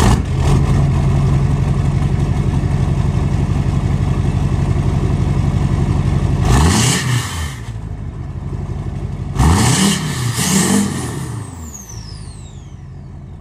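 LLY Duramax 6.6 L turbo-diesel V8 running through a 5-inch stainless downpipe-back exhaust with no muffler. It idles steadily, is revved up and back down once about halfway through, then twice in quick succession a few seconds later. It settles to a quieter idle, with a high whistle falling in pitch near the end.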